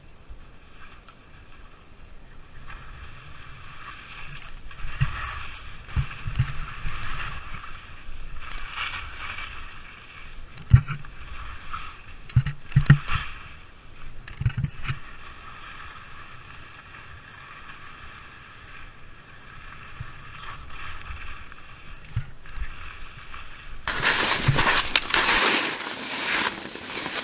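Skis sliding and scraping down steep snow, with a steady hiss and several dull thumps as the skis land turns. Near the end it turns to a louder, brighter rush of snow spray and wind.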